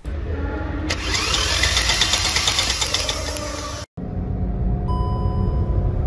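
Hyundai Venue's 1.0-litre three-cylinder turbo petrol engine being cranked over with one spark plug out and lying on the cylinder head, so the test plug's spark can be seen; a bright crackly hiss with fine rapid ticks joins the cranking about a second in. After a brief dropout near four seconds the engine is heard running under way, with a thin steady tone near the end.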